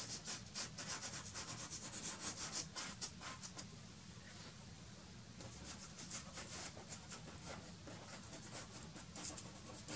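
Soft pastel stick scratching across black pastel paper in quick, short overlapping strokes. The strokes ease off a little before the middle, then pick up again.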